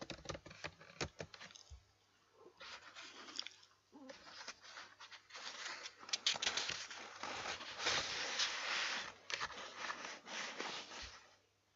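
A few computer keyboard keystrokes, then several seconds of irregular rustling and scraping noise with scattered clicks.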